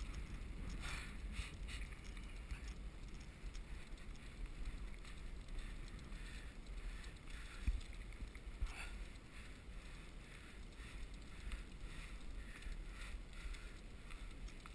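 Bicycle rolling along an asphalt path: a steady rumble of tyres and frame with some wind noise, and one sharp knock about halfway through.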